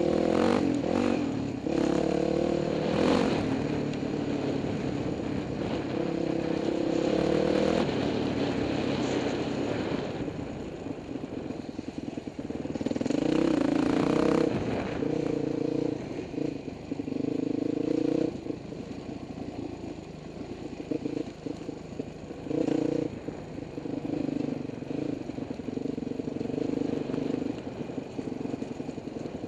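Dirt bike engine running under changing throttle, revving up and dropping back repeatedly as it climbs a rocky trail, with clattering knocks from the bike over the rocks.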